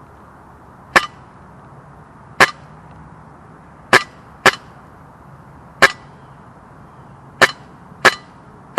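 Airsoft rifle firing single shots: about seven sharp, loud cracks, spaced irregularly from about half a second to a second and a half apart.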